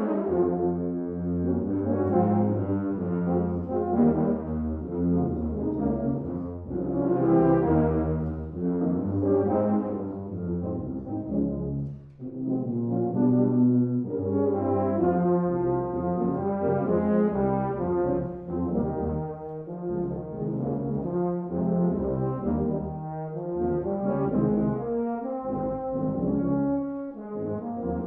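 Tuba and euphonium quartet (two euphoniums, two tubas) playing after a short pause: low brass chords and moving lines in a steady rhythmic groove, with a brief drop in the playing partway through.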